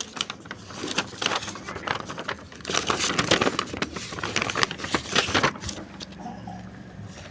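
Card packaging being handled and opened, crinkling and rustling in quick irregular crackles, loudest in the middle and dying down over the last couple of seconds.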